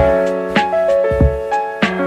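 Background music: keyboard notes over a steady beat.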